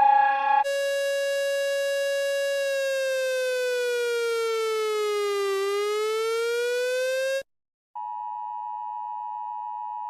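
Electronic emergency-alert siren tones. A harsh, buzzy tone holds steady, then slowly slides down and back up before cutting off about seven seconds in. After a short gap, a steady higher-pitched tone sounds.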